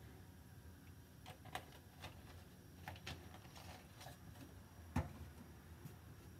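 Faint scattered ticks and pops from oil heating in a preheated frying pan, with one louder knock about five seconds in.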